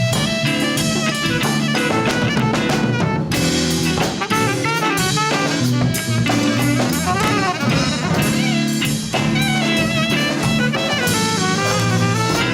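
Latin fusion band playing a song: drum kit and bass under a lead melody that bends and wavers.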